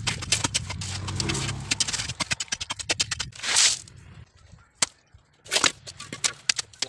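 Wet concrete and stone aggregate being tipped and raked into a gate-post footing pit: a run of quick gritty clicks and scrapes, then short hissing rushes as pans are emptied onto the gravel, about three and a half and five and a half seconds in.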